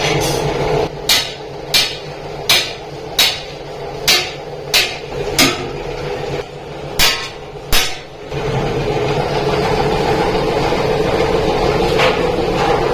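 Hammer striking iron sheet metal: about nine evenly paced blows with a short pause before the last two. About two-thirds of the way in, the blows stop and a steady machine noise takes over.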